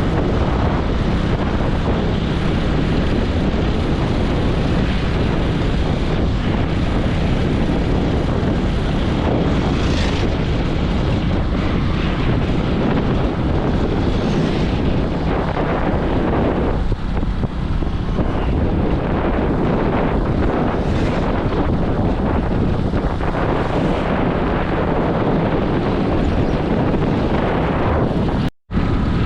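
Wind buffeting the microphone over steady vehicle and road noise from a moving ride. The sound cuts out for an instant near the end.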